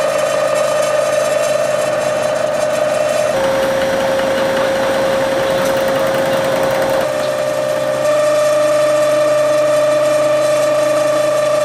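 Hankook CNC machining center running with a steady high whine. From about three to seven seconds in, a hissing, noisier stretch rises over it and the whine drops slightly in pitch, then returns to its earlier pitch.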